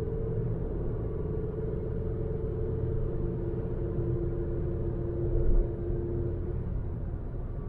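2006 Ford Focus with a 100 bhp petrol engine driving along: a steady low rumble of engine and road noise with a faint steady hum, and a brief thump about five and a half seconds in.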